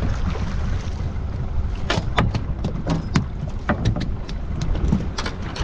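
Steady low rumble of a small fishing boat's engine, with several short sharp sounds between about two and five seconds in.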